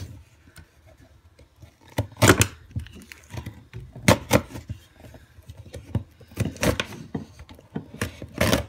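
A key scraping along the seam and cutting through packing tape on a cardboard box. It makes irregular scratchy rasps and knocks as the box is turned in the hands, with the keys on the ring jangling.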